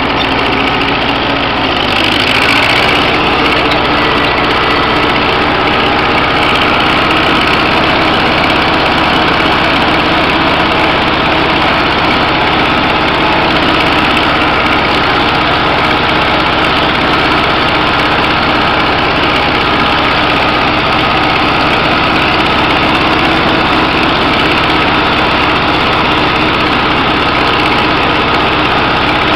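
A 1956 Farmall Cub's small four-cylinder flathead engine running steadily as the tractor is driven, the engine speed picking up a little about two seconds in.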